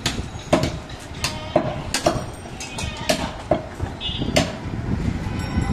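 Butcher's cleaver chopping meat on a block: sharp, irregular knocks about two a second, over market noise.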